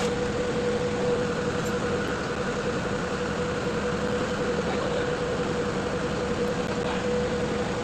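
Wheel loader's diesel engine running steadily at an even speed, with a steady whine held above the engine noise.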